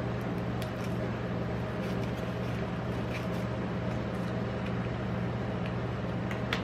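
Steady low electric hum of the rolled-ice-cream machine's cold plate running, with a few faint crinkles and clicks as foil is peeled off chocolate eggs and a chocolate shell is cracked open, the sharpest click near the end.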